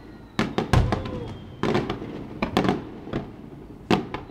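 Aerial firework shells bursting in an uneven series of sharp bangs, the loudest and deepest about three-quarters of a second in. After a pause of about a second, two more bangs come near the end.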